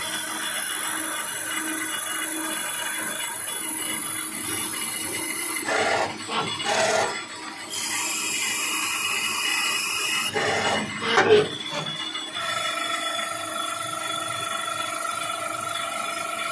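Citizen Cincom L20 Swiss-type CNC lathe machining brass: steady whining tones over a hiss. Two short stretches of clatter come at about six and ten seconds in, and after about twelve seconds the machine settles into a new, higher set of tones.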